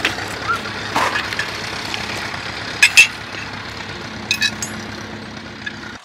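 Tractor engine idling steadily, with a few sharp clinks and knocks over it; the loudest is a pair about three seconds in.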